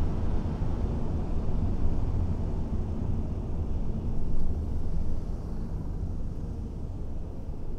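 Car driving on a city street: a steady low rumble of road and engine noise, getting quieter from about five seconds in.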